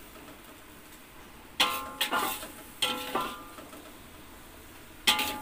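A metal spatula knocking and scraping against a steel wok while stir-fried beef is scooped out onto a plate. Two pairs of ringing clanks come about half a second apart, then another near the end, with quieter stretches between.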